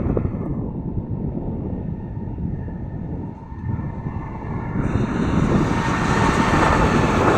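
EP20 electric locomotive approaching at speed under regenerative braking: a steady rumble with a thin whine, then about five seconds in a loud rushing of wheels and air on the rails that grows louder as it draws near.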